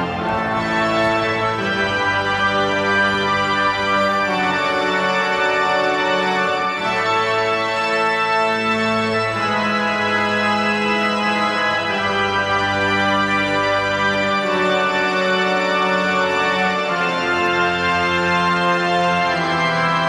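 Royal Albert Hall pipe organ playing slow, sustained chords that change every couple of seconds at a steady level.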